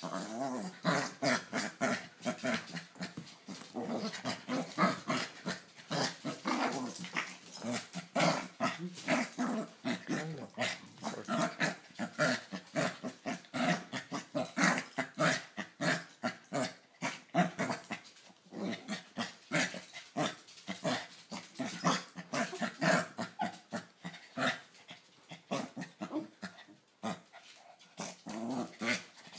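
Small dog play-growling in rapid, continuous short bursts while mouthing and play-biting a person's hand.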